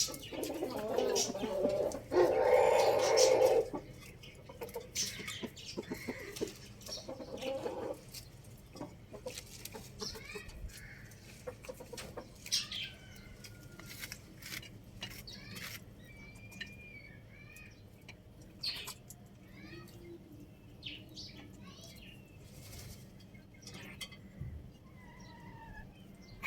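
Rooster crowing once, loud, about two seconds in, after some louder calling. Afterwards, quieter chicken clucking, short clicks, and small birds chirping in short high calls.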